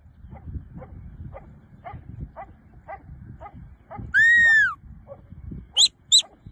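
Sheepdog barking in a steady rhythm, about two barks a second. Then a shepherd's whistle command: one long whistle that rises and falls, followed near the end by two short, sharp whistles.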